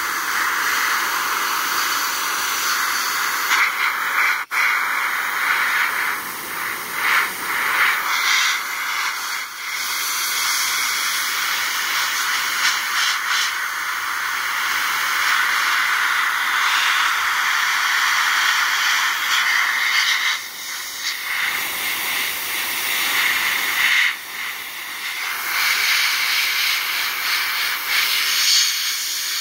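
Compressed-air blow gun blasting a steady, loud hiss of air, broken by a few brief drops where the trigger eases off. It is blowing dry a freshly washed metal plate wet with phosphate solution.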